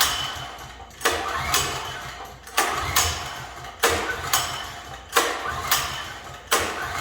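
Portable generator's small engine being pull-started again and again, about five rope pulls roughly a second and a half apart, each a rasping whirr as the engine turns over and dies away without catching. The engine won't fire, which the owner puts down to stale fuel in the carburetor.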